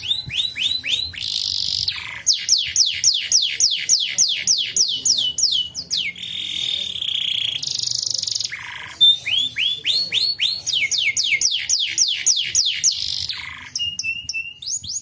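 Canary singing: runs of rapid, repeated downward-sweeping whistled notes, broken by buzzy rolls and short trills, thinning out near the end.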